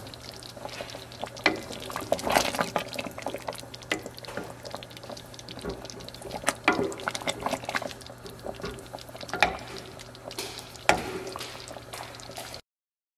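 A thick tomato-and-gravy chicken stew simmering in a pot and being stirred with a wooden spoon: irregular wet bubbling pops and sloshing over a steady low hum. It cuts off abruptly near the end.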